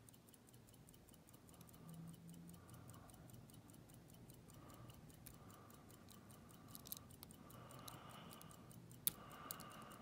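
Faint lock picking: a quick, even ticking runs underneath throughout, and a few sharper clicks in the last few seconds come from a pick and tension wrench working the pins of a Federal 730 padlock.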